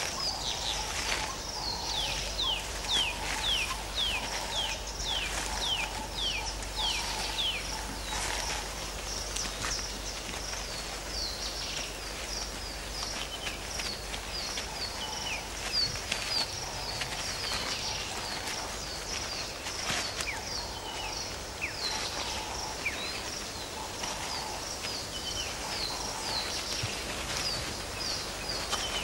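Birds calling over a steady low background noise: quick high falling chirps repeated in a fast run through the first eight seconds or so, then scattered through the rest.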